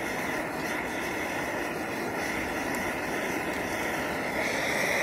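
MSR XGK-EX multi-fuel expedition stove burning at full flame, a steady jet-like rushing noise that gets a little louder near the end.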